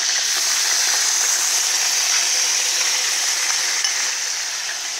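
Sauce and aromatics poured from a bowl into a hot pot around a whole chicken, the liquid hitting the hot metal with a steady, loud sizzle.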